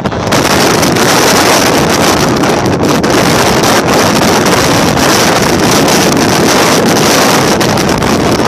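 Strong storm wind buffeting the microphone: a loud, steady rushing roar that comes up just after the start.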